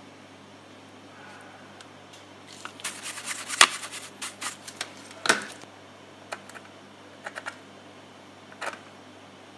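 Clicks and light clatter of hand tools and small parts being handled on a workbench, a quick flurry of ticks in the middle with two sharper knocks, then a few scattered clicks, over a steady low hum.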